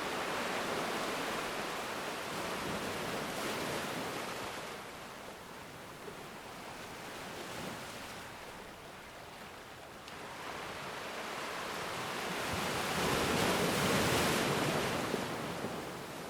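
Ocean surf breaking on a black sand beach: a steady roar of waves that rises and falls, with one wave crashing louder about three-quarters of the way through.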